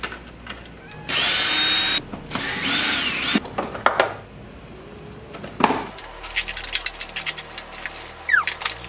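Cordless drill running in two short bursts, about a second each, the second wavering in pitch as the trigger is eased, as it drives screws on the plastic cowl panel in the engine bay. After that come scattered clicks and knocks of plastic parts being handled.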